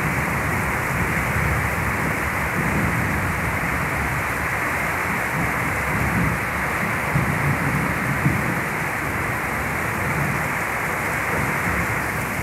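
Heavy monsoon downpour: a steady hiss of rain falling hard on leaves and a flooded puddle.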